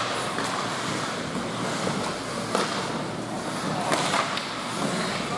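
Steady hiss of hockey skates scraping the ice of a rink during play, with a few sharp knocks, one about two and a half seconds in and another near four seconds.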